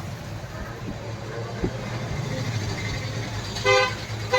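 Steady road-traffic and engine hum, with a vehicle horn sounding two short toots near the end.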